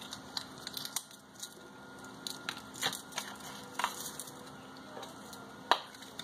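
A new honey container being opened by hand: a string of irregular crackles and sharp clicks, the loudest one near the end.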